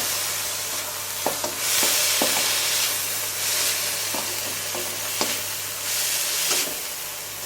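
Ginger, onion, garlic and green pepper sizzling in oil and sauce in a hot pan while being stir-fried, the hiss swelling and fading as the vegetables are turned, with a few light clicks of the spatula against the pan.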